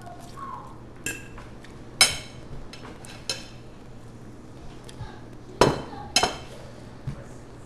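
A metal fork clinking against a dinner plate, about six sharp ringing clinks. The loudest come about two seconds in and again halfway through.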